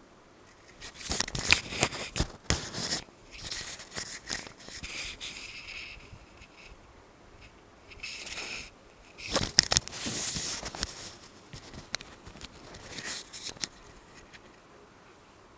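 Surgical micro-suction working in the ear canal: irregular bursts of high-pitched hissing with sharp clicks and short whistling stretches, stopping and starting as the tip is moved. The bursts end a little before the close.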